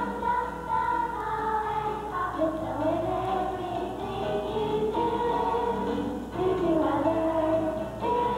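Large children's choir singing a melody together, with a steady low hum beneath.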